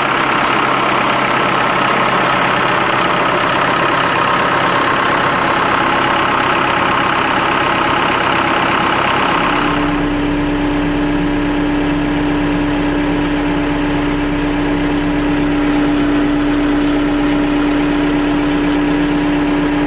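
Versatile tractor's diesel engine running steadily at idle. About halfway through the sound changes abruptly: the hiss falls away and a strong, steady low hum comes to the fore.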